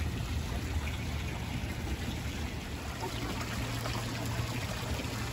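Water pouring steadily from lion-head spouts of a wall fountain and splashing into a shallow pool.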